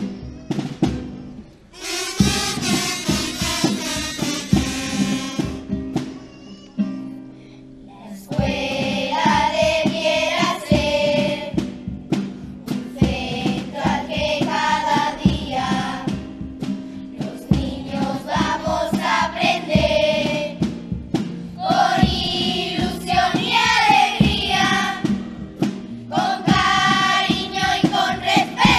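Children's carnival comparsa choir singing together over drum beats. There is a short break in the singing about six seconds in, then the song picks up again.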